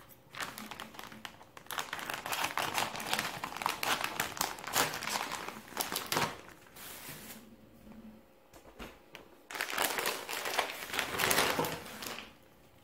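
Thin plastic packaging and plastic bags crinkling and rustling as they are handled and a plastic sleeve is cut open with scissors. The crinkling comes in two long stretches with a quieter pause in the middle, and is loudest near the end.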